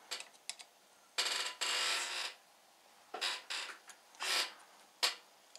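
Hex key turning a mounting screw in the motor's gear housing plate. It makes metallic clicks and scrapes as the key seats and the screw is driven in, the longest scrape lasting about a second and starting a little over a second in, followed by several shorter ones.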